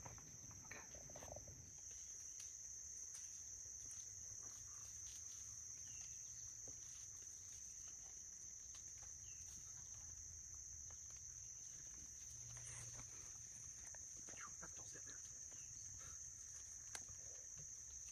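Faint, steady high-pitched chorus of insects, with a few faint scattered ticks.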